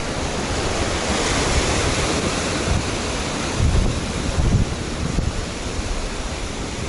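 Rough surf washing and breaking over jetty rocks, a steady rushing wash of seawater. Wind buffets the microphone in low rumbling gusts about three and a half to four and a half seconds in.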